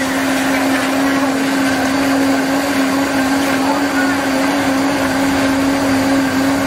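Electric blender motor running at a steady high pitch as it blends fruit into a smoothie. Its pitch starts to drop at the very end as it winds down.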